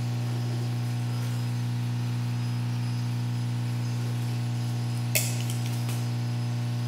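Steady low electrical hum, with one light clink about five seconds in and a few faint ticks.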